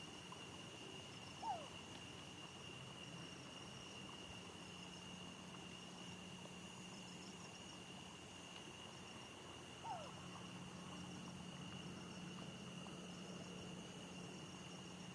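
Faint, steady drone of night insects such as crickets, with light chirping above it. Two short falling calls sound about eight seconds apart, one near the start and one past the middle.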